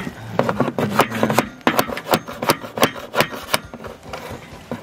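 A steel carriage bolt tapping repeatedly on a rack fitting inside a van roof rail's channel, metal on metal, to knock the fitting past the rail's mounting bolts. The taps come quick and irregular, about three or four a second, and thin out about three and a half seconds in.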